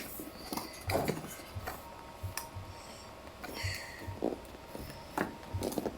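Scattered light scrapes, taps and small knocks of a keyboard box being handled and opened.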